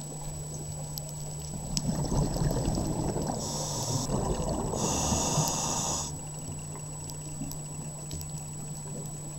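Scuba diver breathing through a regulator, heard underwater: a stretch of crackling, gurgling exhaled bubbles from about a second and a half in, with two spells of regulator hiss around the middle, then back to a quieter background.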